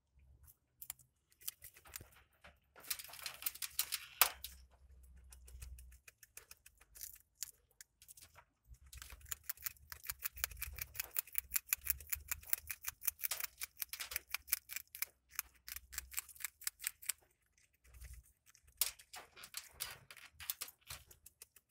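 Grasscutters (greater cane rats) chewing grass: rapid, crisp crunching clicks that come in several long bursts with short pauses between them.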